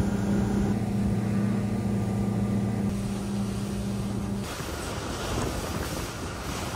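Speedboat engine running with a steady low hum, which cuts off about four and a half seconds in, leaving only wind and water rushing past the boat.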